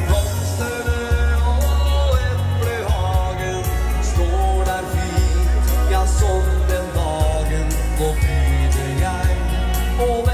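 Norwegian dance band playing live through PA speakers: a man singing over keyboard and electric guitar, with a heavy bass line and a steady beat.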